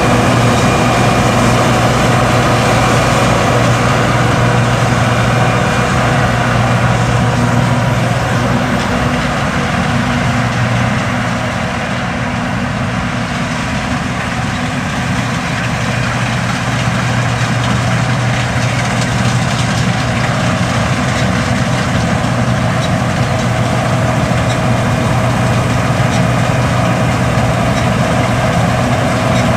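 John Deere S550 combine harvester running in the field, a steady heavy engine drone with its threshing machinery, dipping slightly in loudness for a few seconds midway.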